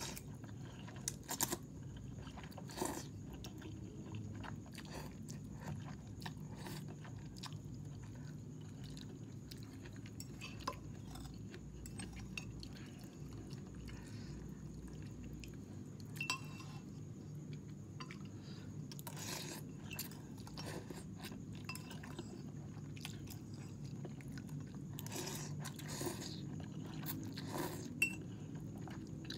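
A person eating instant ramen: chewing and slurping noodles, with scattered small clicks and clinks of a fork and spoon against a ceramic bowl, over a steady low hum.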